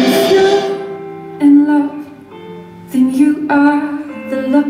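Music of a slow song in an instrumental stretch between sung lines: held notes with a few struck notes coming in about one and a half, three and three and a half seconds in.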